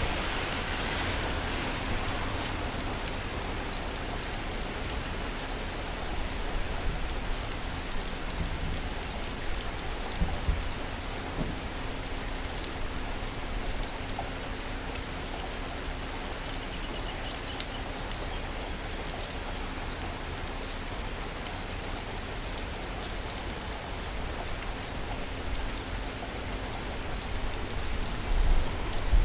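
Steady rain falling, an even hiss with scattered drops and a faint steady hum underneath; a low rumble swells near the end.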